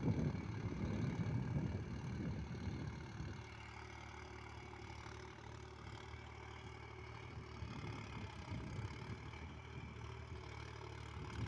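Mahindra tractor's diesel engine running steadily as it pulls a tillage implement across the field, heard from a distance. Wind rumbles on the microphone for the first few seconds before the steady engine note comes through clearly.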